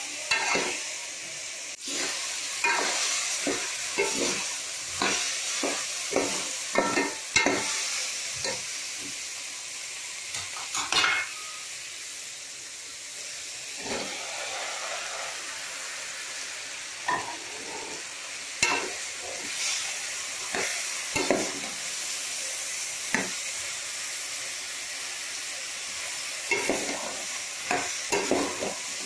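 Chopped mixed vegetables sizzling in hot oil in a metal pot while a spoon stirs them. The steady frying hiss runs under repeated sharp scrapes and clicks of the spoon against the pot, which come in flurries and ease off briefly about halfway through.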